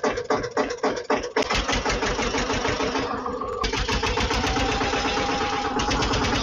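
A music beat for the first second and a half, then a steady engine running sound with a faint rising whine, as the toy tractor drives across the dirt.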